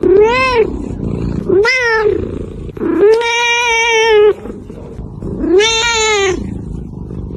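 A cat meowing four times, each call rising then falling in pitch; the third meow is long and drawn out.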